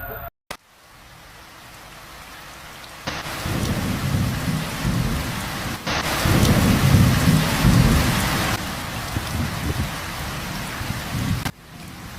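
Heavy rain falling steadily, a dense hiss with a low rumble, getting louder in steps over the first half and dropping back near the end.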